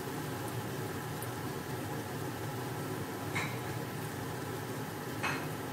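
Steady kitchen hum with two sharp clinks of cookware, one a little past halfway and one near the end.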